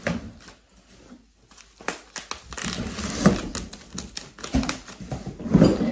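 Cardboard and foam packing being handled and pulled out of a shipping box: irregular rustling and crinkling with scattered knocks, the loudest about three seconds in and near the end.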